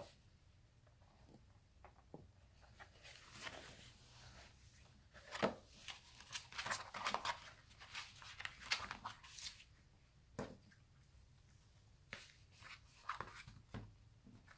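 Handmade paper booklet being handled: stiff pages rustling and flipping, with a few light taps, busiest in the middle.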